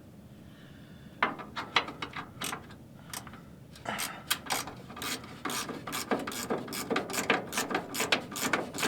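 Hand ratchet wrench clicking as it backs a bolt out of the top of the truck frame: a short run of clicks about a second in, a pause, then steady clicking about three times a second.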